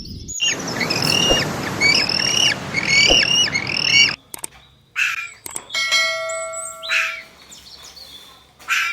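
A bird chirping in quick repeated arched calls, about two a second, over a hissy background. After about four seconds the calls thin out to a few separate chirps.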